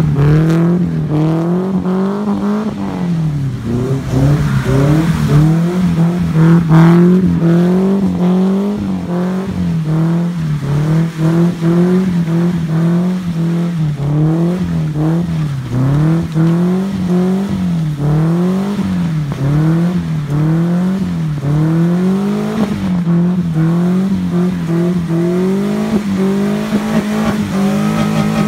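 Nissan 240SX drift car's engine held at high revs while it does donuts on wet pavement, the revs swinging up and down in a steady rhythm about every second and a half.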